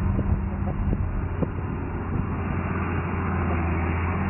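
A heavy engine running steadily, with a few light knocks in the first second and a half.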